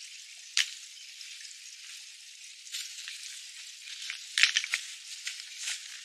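Sharp clacks of loose stones being handled and set down on a rock pile, a single one about half a second in and a quick cluster a little after four seconds, over a steady hiss.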